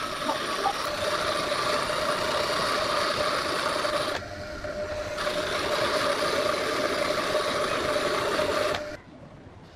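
Small electric power tool running steadily under load, easing off briefly about four seconds in and stopping abruptly near the end.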